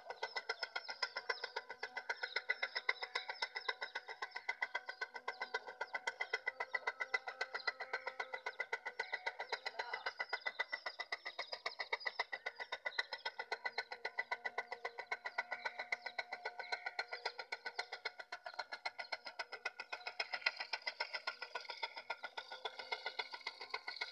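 A 12-volt motor, wired straight to a car battery, running a belt-driven water pump: a steady whine with a rapid, even ticking.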